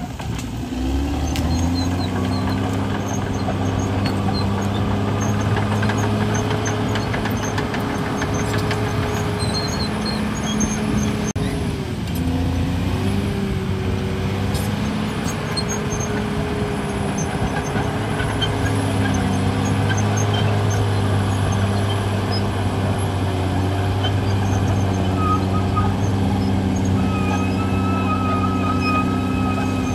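CAT D6R crawler bulldozer's diesel engine running under load as the machine pushes earth. The engine note shifts as the load changes and dips briefly about twelve seconds in. A thin high squeal comes near the start and again near the end.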